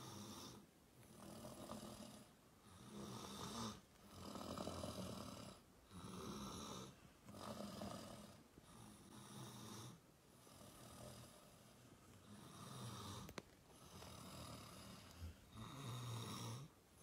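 Soft, raspy snore-like breathing close to the microphone, in slow even breaths about one every one and a half seconds.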